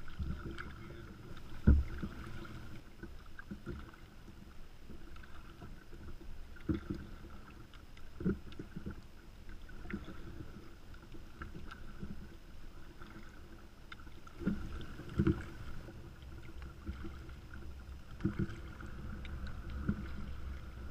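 Kayak being paddled on a lake: double-bladed paddle strokes dipping and splashing in the water, with a few sharp knocks, the loudest about two seconds in, over a low wind rumble on the microphone.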